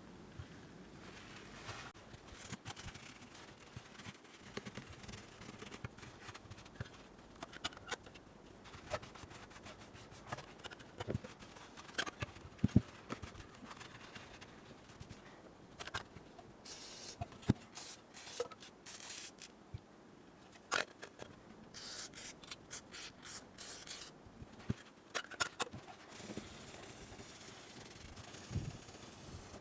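Hands-on scraping and rubbing at a small metal Esbit field stove, with scattered clicks and light knocks and a few longer bouts of scrubbing, as rust and grime are cleaned off during its restoration.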